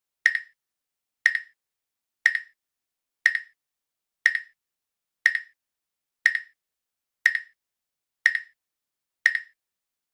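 Countdown timer tick sound effect: a short, bright clink once every second, ten in a row, with dead silence between ticks.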